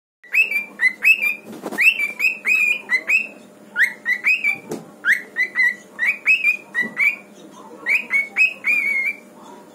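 Cockatiel chirping: short whistled notes, each sliding up and then levelling off, in quick runs of two to four with brief pauses between runs.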